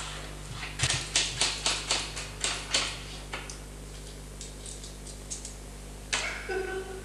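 A quick run of about a dozen sharp clicks and taps, roughly four a second, from small hard objects being handled on a worktop, thinning to a few scattered taps, then a short squeak near the end.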